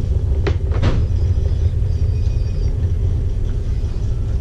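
Steady low rumble of a passenger river launch's engines under way, heard inside a cabin. Two short clicks come a little under a second in.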